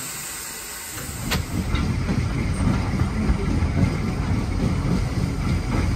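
Steam locomotive 5553, a GWR small prairie tank, hissing steam while standing; about a second in, this gives way to the steady rumble and clatter of the train running along the rails, with a sharp click soon after.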